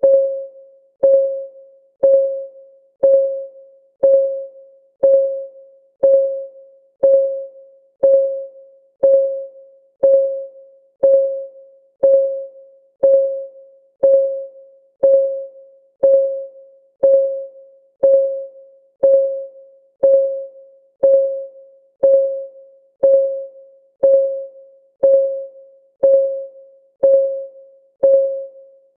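Countdown timer's ticking sound: one sharp tick every second, each ringing briefly on a single mid-pitched tone and fading before the next, keeping a steady rhythm.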